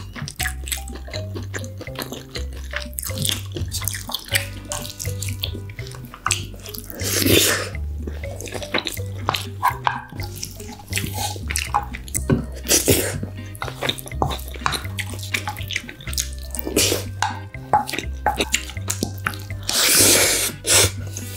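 Close-miked wet eating of marinated raw crab (gejang) with rice: chewing and lip smacks, with several louder, longer slurps. Background music with a stepping bass line plays underneath.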